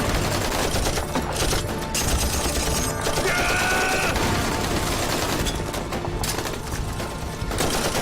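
Continuous rifle and machine-gun fire with scattered shots, under dramatic background music: a war-drama battle soundtrack.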